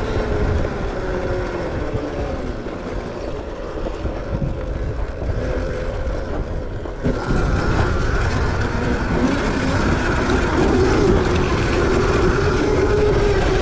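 Electric dirt bike being ridden off-road: a motor whine that slowly falls in pitch, then climbs and wavers with speed, over heavy wind and tyre rumble. The sound jumps suddenly louder about seven seconds in.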